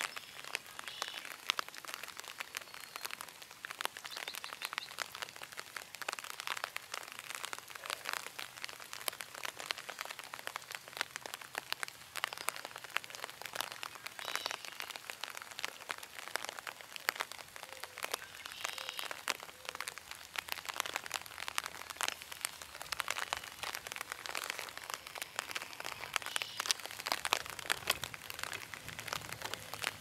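Rain pattering on an umbrella held over the microphone: a dense, irregular crackle of drops.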